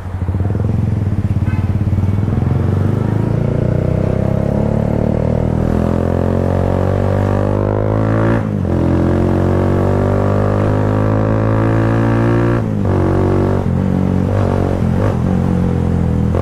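Kawasaki Rouser 180's single-cylinder four-stroke engine through an Akrapovic slip-on muffler, accelerating with the exhaust note rising. The pitch drops sharply at two upshifts, about halfway through and again about three-quarters through, then eases off slightly.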